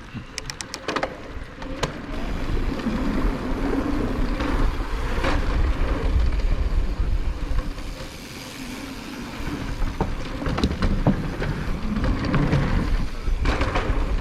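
Mountain bike riding fast down a dirt singletrack trail: a steady rushing and rolling noise with a low rumble and scattered sharp clacks and rattles from bumps. It gets louder about two seconds in as speed picks up.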